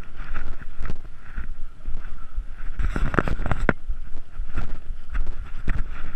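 Low rumble of walking and handling on a GoPro action camera's microphone as a hiker moves along a rough path, with a louder cluster of scuffing steps about three seconds in.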